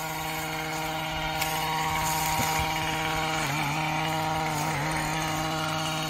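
A small engine running at a steady pitch, which dips briefly and recovers about halfway through.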